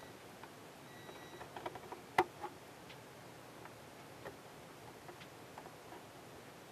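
Metal tweezers tapping and clicking against a plastic ship model as a tiny part is set in place: a quick run of small light ticks, the sharpest just after two seconds in, then a few faint scattered ticks.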